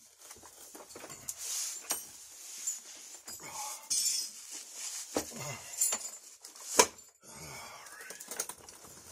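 Clinks and knocks of metal suspension parts being handled and fitted at a Ford F-250's rear leaf spring, with one sharp clank about seven seconds in.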